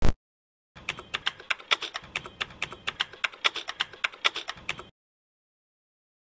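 Typing on a computer keyboard: a quick, even run of key clicks, about seven a second, lasting roughly four seconds and then stopping. A single sharp click comes at the very start.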